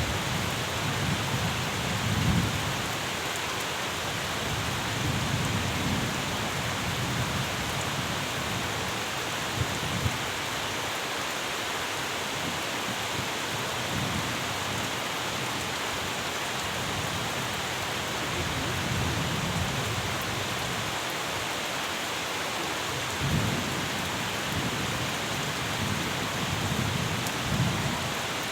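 Steady rain falling, a dense even hiss, with low rumbles that swell and fade several times.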